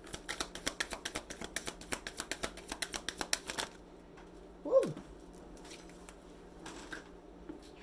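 Tarot deck shuffled by hand: a fast run of card clicks, about eight a second, that stops after three and a half seconds. A short sound falling in pitch follows about a second later.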